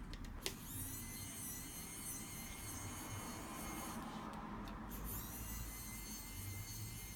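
A small electric motor whining steadily, starting just after a click about half a second in, stopping briefly about four seconds in, then starting again.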